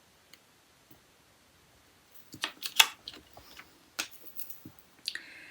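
Sharp clicks and taps of small tools or pieces handled on a hard surface, starting about two seconds in, with a brief scrape near the end.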